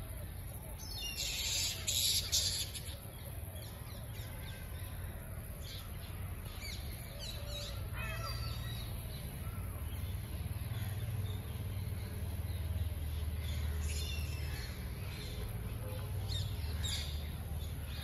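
A chorus of short, high chirping and squawking calls from treetops holding a roost of fruit bats, with a brief loud hiss a second or so in and a steady low rumble underneath.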